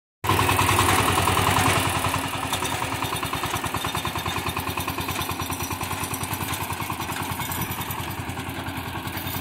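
Power tiller's single-cylinder diesel engine running with a fast, even chugging. It is louder for the first two seconds, then settles a little quieter.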